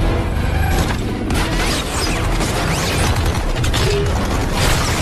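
Action-film battle sound effects: a steady low rumble under a dense, rapid mechanical clatter with sharp impacts, the strongest about a second in and again near the end.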